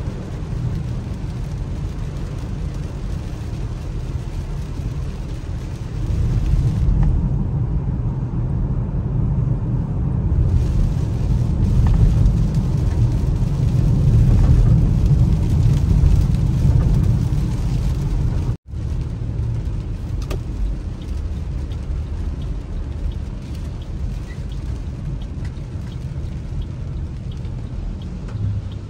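Car cabin noise while driving on a wet road in rain: a steady low rumble of tyres and engine, louder through the middle, cutting out for an instant about two-thirds of the way through.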